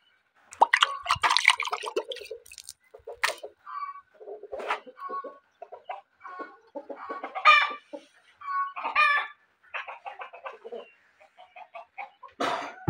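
Chickens clucking: a scatter of short, irregular calls from hens and roosters, some louder than others.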